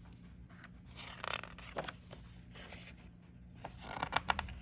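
Paper page of a hardcover picture book rustling as a hand lifts and turns it, with a few soft scrapes and then a quick run of crinkly paper sounds near the end as the page flips over.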